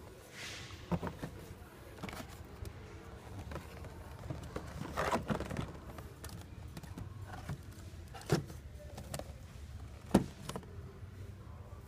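Plastic blister-pack toy packages being handled on a shop shelf: scattered clicks and knocks, the loudest near the end, with a plastic crinkle about five seconds in, over a low steady hum.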